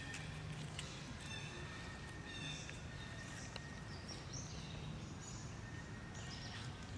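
Outdoor forest background: an even faint hiss with a thin steady tone, and short high chirping calls every second or two.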